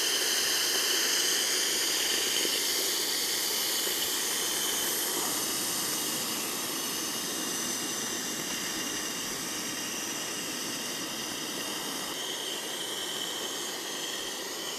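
Steady hiss of the steam blower on a coal-fired live-steam model locomotive, drawing the fire while steam is raised; it eases off slightly towards the end.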